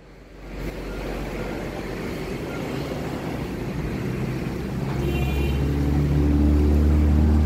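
A rushing background noise grows louder. About five seconds in, a steady, low mechanical hum starts and holds, like a motor running.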